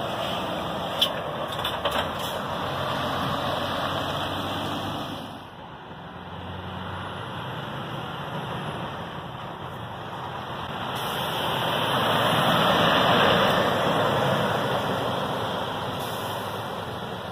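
Two Scania articulated lorries with bulk tipper trailers driving past one after the other, diesel engine and tyre noise. The first is passing at the start and fades away about five seconds in. The second swells to the loudest point of the clip as it goes by, then eases off. A few sharp clicks sound near the start, about one and two seconds in.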